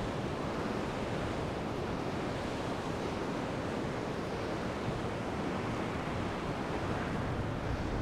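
Sea surf washing steadily onto a sandy shore, an even rush of breaking waves, with wind on the microphone.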